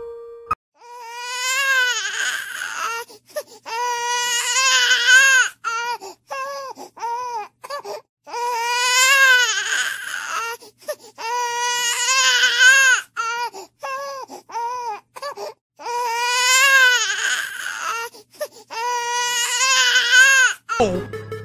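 Baby crying: long wavering wails, one after another, with short sobbing cries in between.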